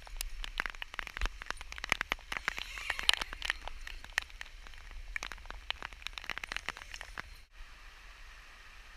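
Heavy rain: dense, irregular raindrop ticks pattering close by. About seven and a half seconds in they cut off abruptly, leaving a steady rain hiss.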